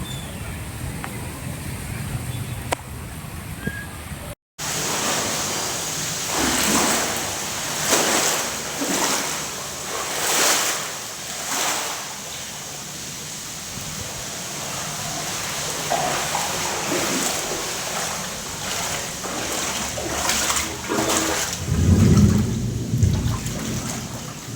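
Rainwater splashing and sloshing in repeated surges during heavy rain, with a low rumble near the end.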